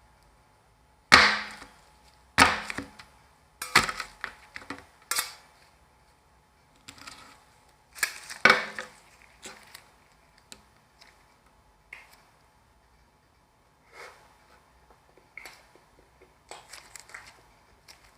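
Metal spatulas chopping and scraping ice cream ingredients on an ice cream roll machine's frozen steel plate: a string of sharp, uneven knocks, with several heavy strikes in the first half and lighter taps after.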